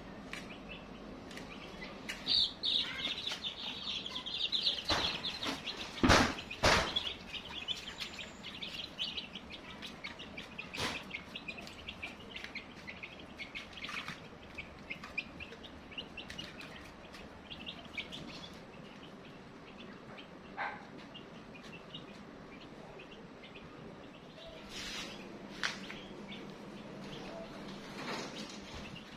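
Chicks peeping rapidly and continuously, busiest in the first third and thinning out later, with a couple of sharp knocks about six seconds in.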